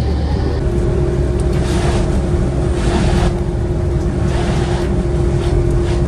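Car engine and tyre noise from inside a moving car on an asphalt road: a steady low rumble with a constant hum, and the road hiss swelling briefly a few times.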